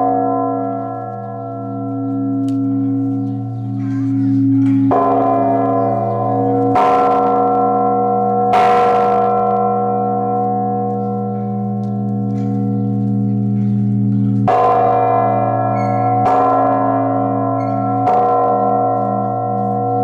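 Large Orthodox blagovest bell of about two tons, rung by its clapper on a pulled rope: six strokes in two sets of three, about two seconds apart. Its deep tone hums on between strokes with a slow waver.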